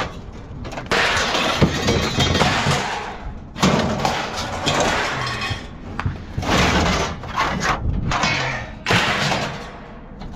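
Junk being thrown out onto a dump pile: repeated crashing and clattering with breaking, glass-like shattering, in several loud bursts a few seconds apart.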